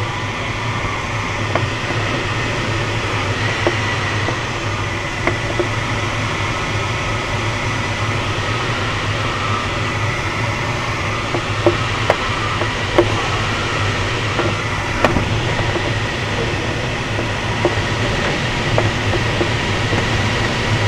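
Steady rush of air streaming over a glider's canopy and fuselage in flight, heard from inside the cockpit. A faint high tone comes and goes, and a few light knocks sound around the middle.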